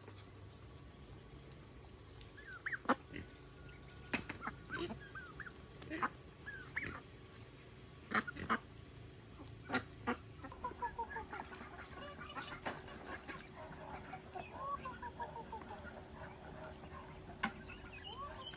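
Chickens clucking and calling, with scattered sharp taps. A run of quick chirping calls follows in the second half.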